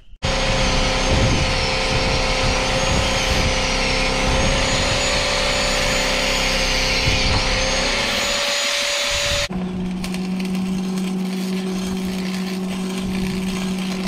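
Compressed air hissing steadily from a blow gun, with a faint wavering whistle, as leaked hydraulic fluid is blown off a post driver's hydraulic cylinder. After about nine and a half seconds it stops abruptly and electric arc welding takes over: a steady crackle over a low hum as the leaking cylinder is welded.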